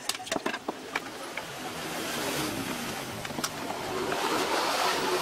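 Plastic casing of a portable PA amplifier knocking and clicking as it is handled and set down, a quick run of sharp clicks in the first second. A steady rushing noise underneath grows louder near the end.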